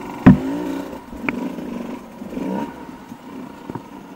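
Dirt bike engine revving up and down in short bursts on a rough, rocky trail, with a loud knock about a quarter of a second in and a couple of sharper clicks later.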